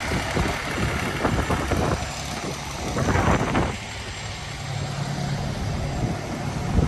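An engine idling with a steady low hum, under rushing noise that swells a couple of times.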